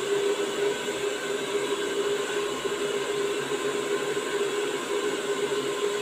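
Handheld hair dryer running steadily as it blows short hair dry: an even blowing noise with a constant motor tone.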